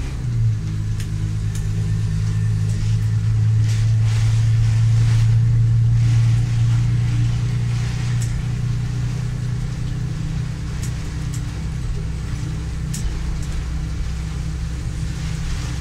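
A vehicle engine runs with a steady low hum, heard from inside the cab, with faint scattered ticks over it. The pitch steps down slightly about half a second in, then holds.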